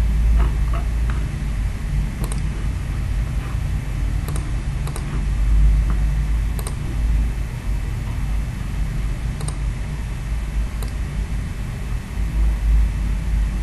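A computer mouse clicking now and then, a scattered handful of sharp clicks, over a steady low hum.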